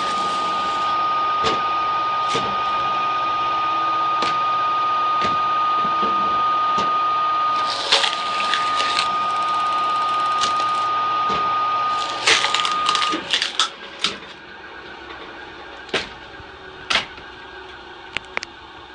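Screw-cone log splitter driven by a 7.5 kW low-speed electric motor, running with a steady hum and a constant whine. Sharp cracks of wood splitting on the cone come about 8 seconds in and again about 12 to 13 seconds in. The hum and whine cut out about 13 seconds in, leaving only a few faint clicks.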